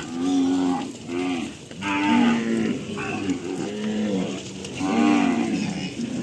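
Cattle mooing over and over, about six short rising-and-falling calls in a row, each under a second long.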